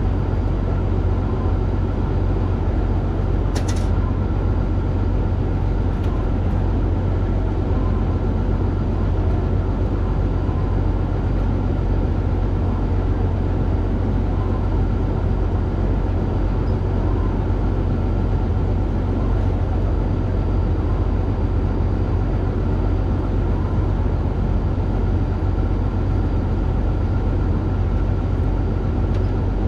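Combine harvester running steadily under load, a constant deep drone with a steady higher whine over it. A single brief click about four seconds in.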